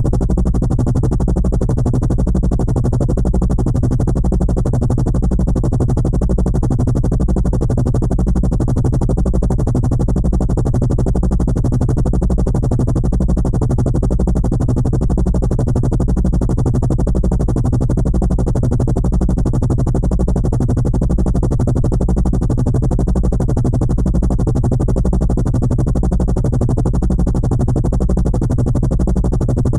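Helicopter rotor chop: a steady, fast, even pulsing with a low hum underneath, holding the same pitch and level without change.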